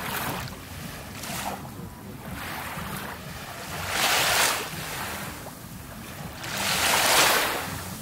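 Small Black Sea waves breaking and washing up a sandy, shell-strewn shore, coming in swells of surf hiss; the two biggest break about four seconds in and about seven seconds in.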